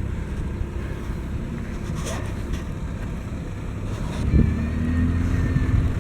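Motor vehicle engine running with a low rumble, with wind on the microphone. About four seconds in, a louder engine with a steady pitch comes in.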